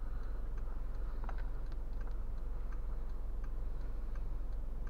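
Steady low hum in a parked car's cabin, with faint, light ticks every half second or so.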